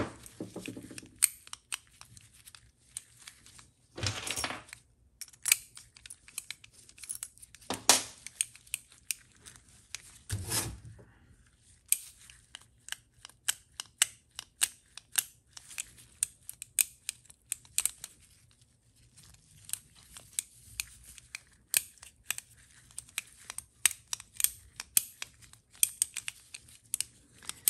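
Irregular metallic clicks from a TH350 transmission governor being worked by hand, its weights and valve knocking as it is tested to see whether the freshly honed valve slides freely. Rustling and rubbing from gloved hands is heard a few times.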